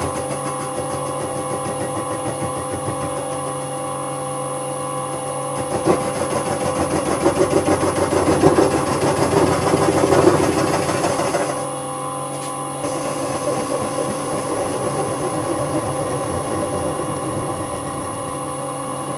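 Vintage Karger metal lathe running with a steady motor-and-gear hum and whine. From about six seconds in, a louder, rougher scraping rises over it as the tool bit takes a light skim cut on the end of the bar stock, easing off a little before twelve seconds.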